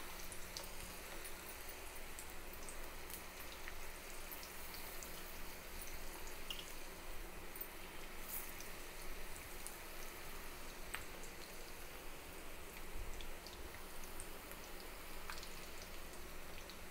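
Ragi-flour and spinach pakodas deep-frying in a kadai of hot oil: a steady sizzle with scattered small pops and crackles.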